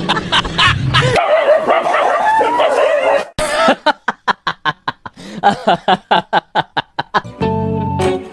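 Animal yelps and whines, then a fast run of short sharp animal calls, about six a second. Music with a plucked tune starts near the end.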